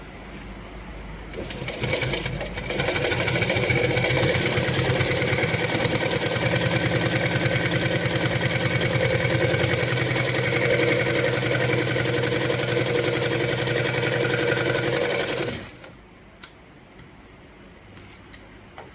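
HighTex 204-102 double-needle moccasin sewing machine starting up about a second in and stitching at speed with a dense, fast, steady clatter, then stopping sharply near the end, followed by a few light clicks.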